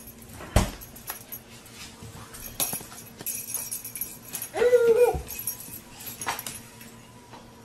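Baby and kitten at play on a hardwood floor: a few sharp knocks and taps on the boards, and about five seconds in a short high-pitched whining cry that rises and then falls.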